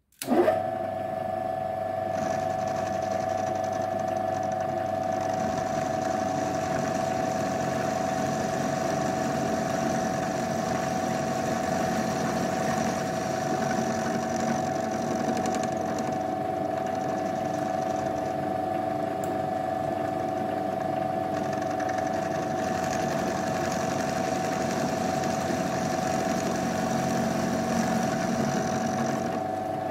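Milling machine running, its end mill cutting a slot into a metal block held in the vise: a steady machining sound with a constant tone.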